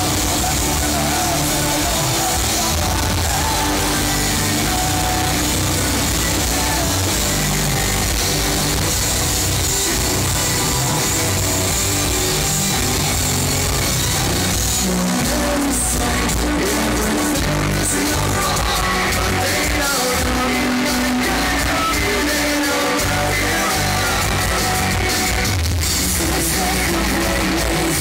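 Rock band playing live through a club PA: distorted electric guitars, bass, drums and singing, heard loud and flat from among the audience.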